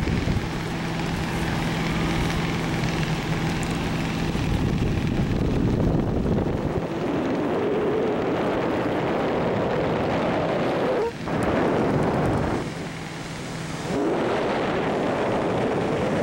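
Wind buffeting the microphone of a camera carried aloft under a parasail, a steady rushing that eases briefly twice in the second half.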